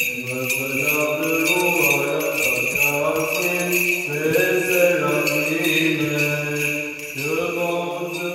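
A male voice chants an Orthodox liturgical hymn in long held notes, pausing briefly about seven seconds in. Under it the small bells of a swinging censer jingle continuously.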